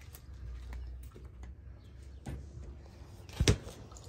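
A single sharp knock about three and a half seconds in, over a low steady rumble.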